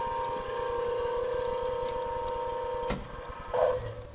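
Steady electric whine of the shop's motor-drive setup, a rotary phase converter feeding VFDs, which cuts off with a sharp switch click about three seconds in. A short clunk follows half a second later.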